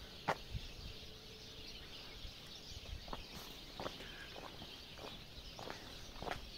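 Footsteps crunching on gravel and loose stone, an uneven step about every half second, over a steady high outdoor hiss.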